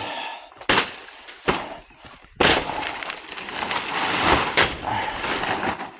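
Two sharp chopping blows into a banana plant's trunk, then the cut banana plant topples, its big leaves crashing and rustling for about two seconds, with one more sharp crack near the end.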